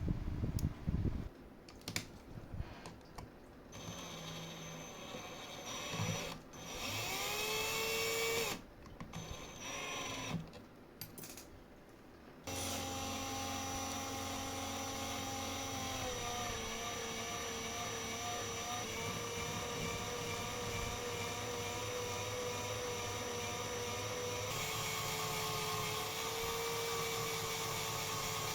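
Small electric rotary tool whining: it spins up several times in short bursts, then runs steadily, changing speed twice.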